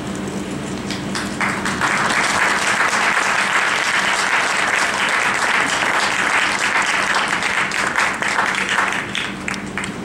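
Audience clapping, swelling about a second and a half in and dying down near the end.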